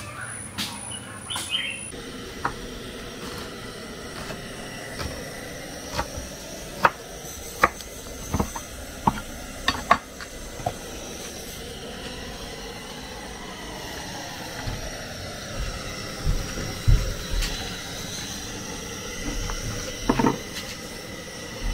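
Clinks and knocks of bowls and kitchen utensils being handled, thickest in the first half, over a steady hiss.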